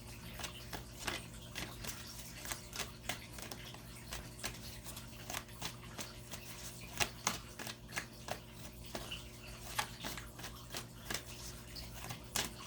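Tarot cards being shuffled and handled: a steady run of faint, irregular clicks and snaps.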